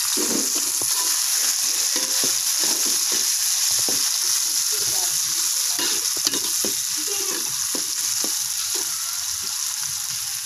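Chopped tomato, shallot, garlic and chilli sizzling steadily in hot oil in a wok, while a metal spatula stirs them with many quick scrapes and taps against the pan.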